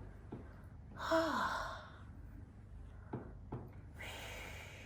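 A woman sighs with a short voiced sound falling in pitch about a second in, then breathes out in a long, breathy exhale near the end, as she gets her breath back after a chiropractic adjustment. Two faint clicks come in between.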